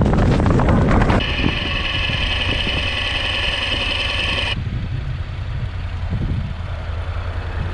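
Wind rushing over the microphone while riding for about the first second. Then the Honda NC750X's parallel-twin engine runs slowly and idles with a steady low throb. A steady high whine sits over it for about three seconds and cuts off suddenly.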